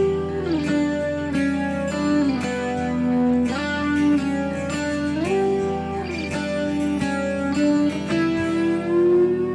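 Background music: a guitar playing plucked notes, with sliding pitch changes between them.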